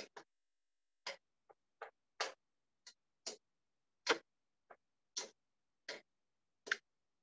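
A spoon stirring a sauce in a pan, knocking and scraping against the pan in about a dozen short, irregular strokes, roughly one every half second to second; the loudest come about four seconds in and near the end.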